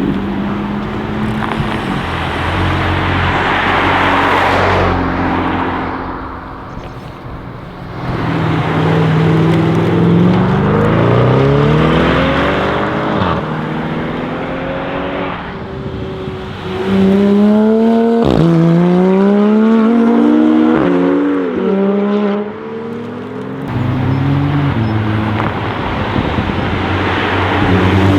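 Mercedes G63 AMG V8 with an Akrapovic exhaust accelerating hard, its pitch climbing and dropping back at several gear changes. A single sharp crack from the exhaust about two-thirds of the way through.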